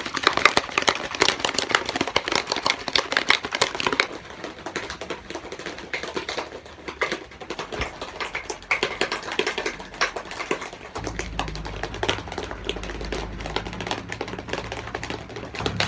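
Whey protein powder and water being shaken hard in a plastic shaker bottle: a fast clattering rattle, loudest for the first four seconds, then lighter, scattered knocks. A low steady hum comes in about eleven seconds in.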